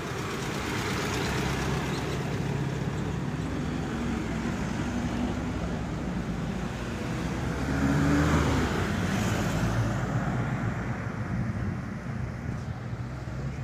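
Road traffic: engines of a truck and a van passing close by, with a steady engine hum that grows loudest about eight seconds in as the van goes past.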